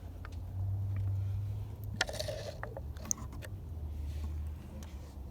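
Hands working with a car's oil filter: a short scrape about two seconds in and a few light clicks, over a low steady rumble.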